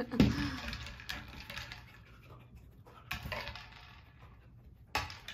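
Hard food pellets rattling inside a plastic blender bottle as a dog paws and noses it, rolling it about to shake the pellets out. The rattling comes in separate bursts: near the start, about a second in, around three seconds in and again near the end.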